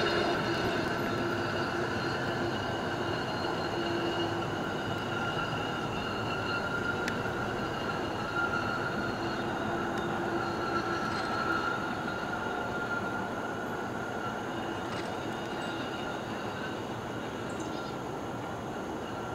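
Hi-rail GM crew-cab pickup running along the rails, its steel guide wheels squealing steadily on the track. The sound slowly fades as the truck moves away.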